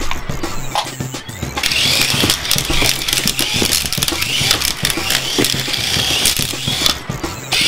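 Toy RC helicopter's electric motor whirring and its rotor blades spinning while it lies tipped over on the carpet, with a wavering whine and many quick clicks. It starts about one and a half seconds in and cuts off just before the end.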